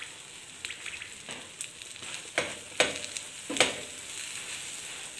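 Egg and oil sizzling steadily in a frying pan under a paratha, with three sharp taps of a wooden spatula on the pan a little past the middle.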